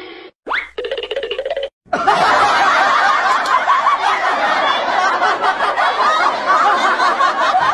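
Canned laughter: many people laughing together, a laugh track coming in about two seconds in after a few short bits of sound.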